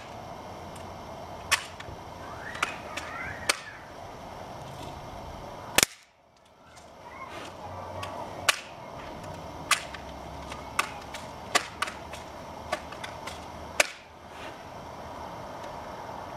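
BB gun shots fired at a flip phone: sharp single cracks, about a dozen at irregular gaps of a second or so, the loudest about six seconds in.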